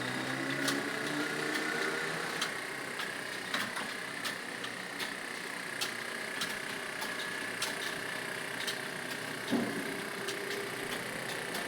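Computer keyboard keys clicking in an irregular stream, several strokes a second, as someone touch-types a speed test. A steady background hum runs underneath.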